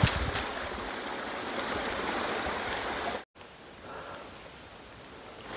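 Small forest stream trickling over rocks, a steady water sound with a couple of short knocks at the start. It cuts off abruptly about three seconds in, leaving fainter outdoor background.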